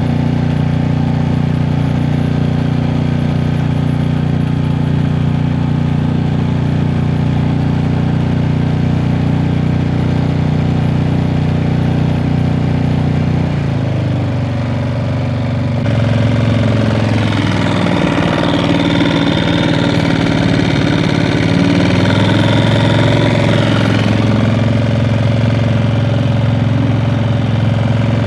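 Small 2.5 hp propane-fuelled outboard motor running steadily under way on a dinghy. Its note shifts about halfway through, then runs a little louder.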